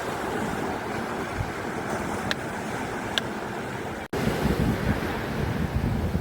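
Ocean surf washing onto a beach as a steady rush, with wind buffeting the microphone. The sound cuts out for an instant about four seconds in, and the low rumble is louder after it.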